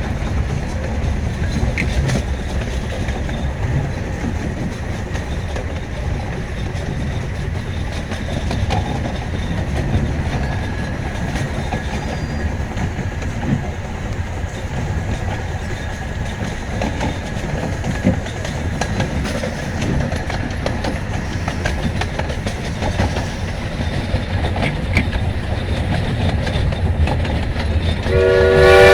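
Steady low rumble of a miniature steam train running, heard from aboard, with occasional faint clicks. Near the end, steam locomotive #7 'Oak' starts blowing its whistle, a loud tone made of several pitches that starts suddenly.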